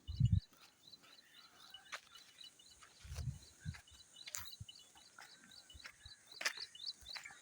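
Outdoor rural ambience: a bird's high chirp repeating evenly about three times a second, with a few louder single bird calls over it. Short low bumps of wind hit the microphone about three seconds in.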